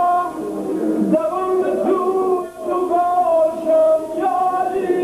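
Male singing of a Yarsan devotional chant with tanbour accompaniment: long held notes that bend and glide between pitches.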